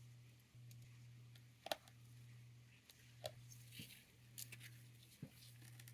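Near silence: a faint low hum with a few small, faint clicks of watchmaker's tools on the parts of a disassembled ETA 2612 watch movement, about two seconds in, at three seconds and near the end.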